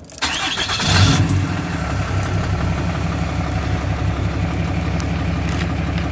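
A 2007 Dodge Ram 2500's Cummins turbo-diesel inline-six is cranked and fires right up, loudest about a second in, then settles into a steady, pretty loud idle through an aftermarket exhaust, heard from inside the cab.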